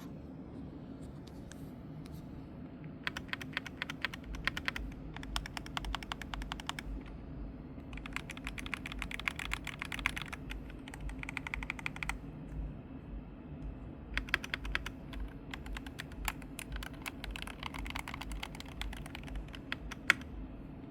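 Typing on a Royal Kludge RK68 HE keyboard with Hall-effect magnetic switches: fast runs of keystrokes in several bursts with short pauses between, and one louder key strike near the end.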